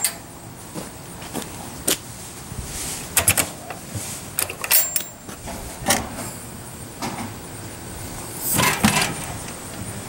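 Scattered sharp metallic clicks and knocks from handling the steel-drum grill, with a louder clatter about nine seconds in as its heavy insulated lid is swung open, over a steady outdoor background hiss.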